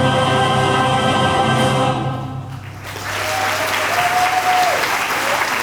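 A song with group singing ends on a long held chord that fades out about two and a half seconds in, then the audience applauds.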